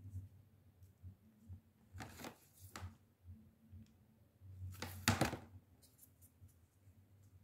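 Quiet handling sounds of EVA foam pieces and a hot glue gun on a tabletop: two short scraping rustles, about two and five seconds in, with a few faint clicks.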